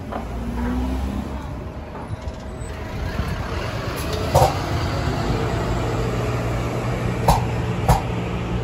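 Hybrid transit bus running past, a steady drive noise that grows louder about halfway through as a low hum sets in, with a few short sharp clicks.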